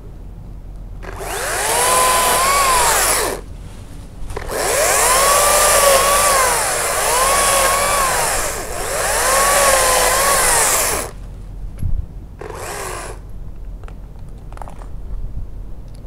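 Makita top-handle battery chainsaw cutting branches, running in bursts: a short run about a second in, then a longer run whose motor whine rises and falls three times, and a brief blip near the end.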